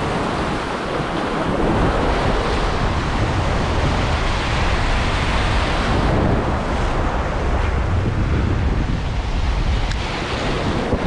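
Sea waves breaking and washing over shoreline rocks in a steady, continuous rush, with wind buffeting the microphone.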